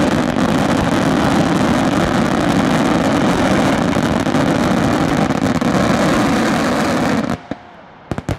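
Fireworks mortar shells firing and bursting in a dense, unbroken barrage that merges into one loud, steady rumble and stops abruptly about seven seconds in. A few separate cracks and pops follow.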